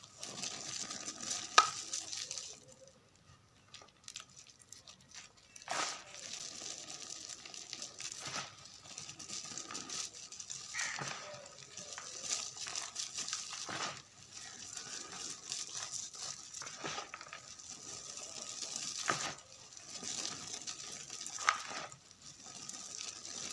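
Gym chalk mixed with confetti being crumbled, a dry crunching and crackling with scattered sharp snaps. It goes quiet for about three seconds shortly after the start, then the crumbling resumes.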